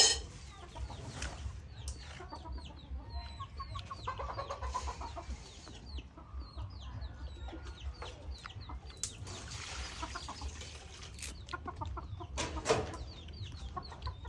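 Chickens clucking, with many short high chirps throughout, and a single sharp knock near the end.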